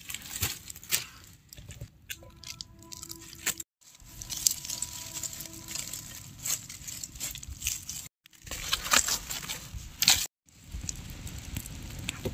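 Dry leaves and twigs crackling and rustling as they are handled and laid on the ground for a small cooking fire, in short clips that cut off abruptly three times.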